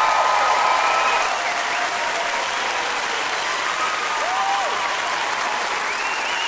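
An audience clapping steadily, with a few voices calling out and whooping over the applause.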